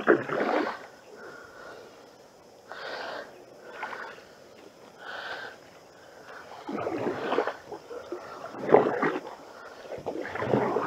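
Canoe paddle strokes in creek water: a swishing splash about every one to two seconds as the blade dips and pulls.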